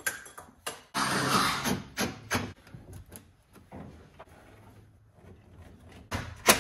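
Work noises from fitting a curtain airbag along a truck's bare roof rail: a rustling, scraping stretch of about a second and a half, scattered clicks, and a sharp knock near the end.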